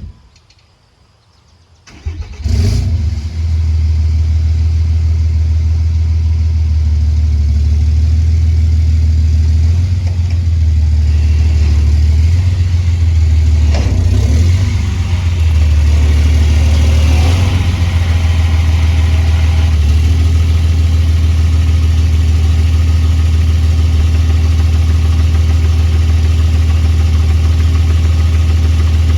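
Modified diesel pickup engine with an aftermarket exhaust starting about two seconds in and then running loud and low. Its note shifts and rises and falls between about ten and eighteen seconds in, then settles steady.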